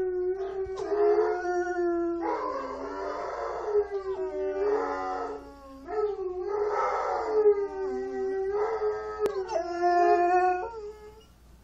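Saint Bernard howling: a run of long howls that waver in pitch, some of them rough and hoarse, stopping shortly before the end.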